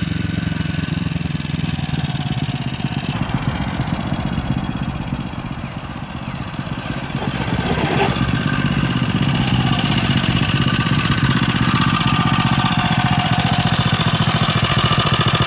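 Single-cylinder Tillotson 225 racing engine on a homemade dirt bike, running under throttle as the bike is ridden across a field. It fades a little about six seconds in, then grows louder and steadier as the bike comes back close.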